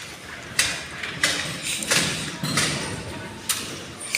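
A series of about six sharp knocks at uneven intervals, roughly every half second to second.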